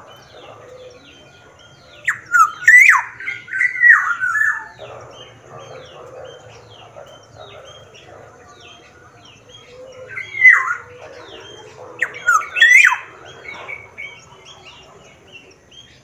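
Caged black-naped oriole (kepodang, Sumbawa type) in full voice, calling loudly in two bouts about two seconds in and again about ten seconds in, each a string of whistles that sweep up and down. Small birds chirp faintly throughout.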